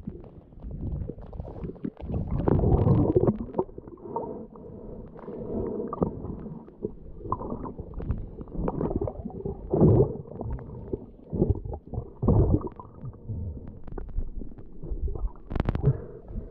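Muffled underwater rumbling and gurgling picked up by a camera held under the sea: water moving over the camera housing in uneven swells, with small clicks and a sharp knock near the end.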